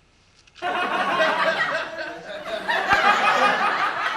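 Several people laughing and chattering together, starting abruptly about half a second in.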